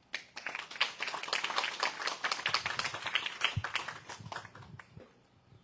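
Audience applauding: dense clapping that starts at once, then thins out and fades away over the last second or so.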